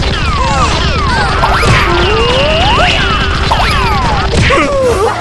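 Cartoon comedy sound effects: a string of whistles swooping up and down in pitch, with a few sharp whacks, over background music with a steady beat.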